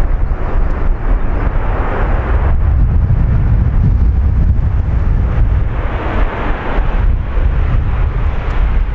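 Heavy wind buffeting the microphone as a deep rumble, over the steady hiss of a Boeing 737-800's jet engines coming in to land. The engine hiss swells near the start and again about six seconds in.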